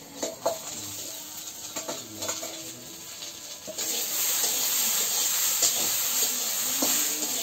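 Metal ladle clinking and scraping in a steel kadai; about four seconds in, chopped ingredients go into the hot pan and a loud, steady sizzle starts, with the ladle stirring through it.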